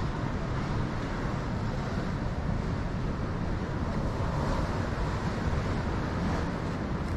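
Wind buffeting the microphone in a steady low rumble, over the wash of ocean surf on the rocky shore.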